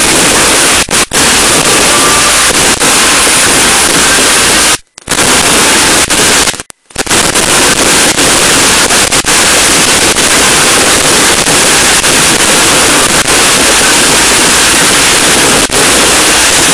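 Fireworks and firecrackers crackling densely, loud enough to overload the recording into continuous distorted noise. The sound cuts out briefly twice, about five and seven seconds in.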